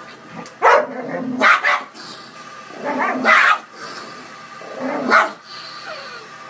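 A large fluffy dog barking: about four loud, separate barks a second or two apart, demanding the food bowl from a smaller dog.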